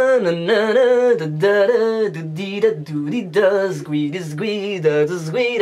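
A man singing a tune alone and unaccompanied, holding wavering notes that step up and down in pitch.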